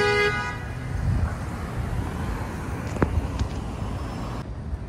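City street traffic with wind buffeting the microphone. A car horn sounds at the very start and stops within the first half-second, leaving a low traffic rumble with one sharp click about three seconds in.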